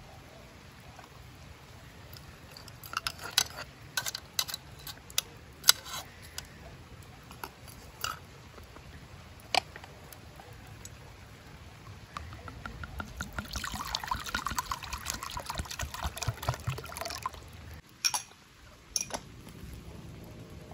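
A spoon clinking against ceramic and metal dishes in a series of sharp clicks, then liquid poured into a cooking pot for about five seconds; a couple more sharp clicks near the end.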